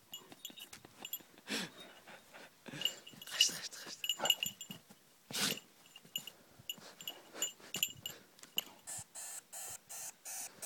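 A Malaklı shepherd dog sniffing and pawing at a mouse in dry grass: snuffling breaths and rustling, with a run of quick, evenly spaced sniffs near the end as it noses between rocks.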